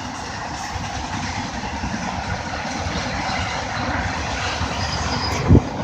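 Long freight train rolling past, a steady rumble of its cars on the rails. A short low thump about five and a half seconds in.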